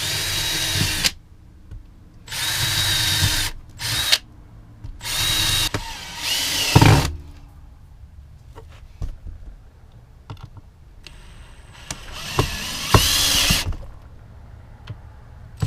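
Power drill boring pilot holes into a piece of OSB, running in about six short runs of a second or so each, with pauses and a few light knocks between.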